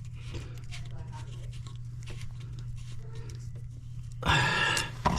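Small clicks and scrapes of a toilet supply-line nut being threaded by hand onto the fill valve's threaded shank, over a steady low hum. About four seconds in, a louder rasping sound lasts under a second.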